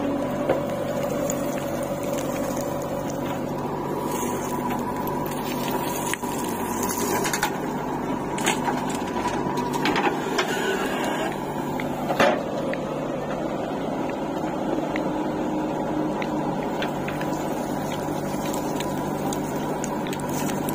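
JCB 3DX backhoe loader's diesel engine running steadily under hydraulic load while the backhoe digs and swings a loaded bucket. A few sharp knocks and clanks come in the middle, the loudest about twelve seconds in.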